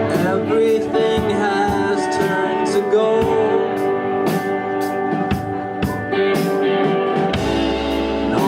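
Live band music: amplified guitars and a drum kit with steady cymbal strokes, and a voice singing over them.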